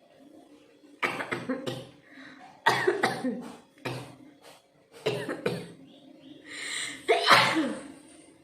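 A woman coughing hard, about five separate coughs a second or so apart, the loudest one near the end right after a hissing breath.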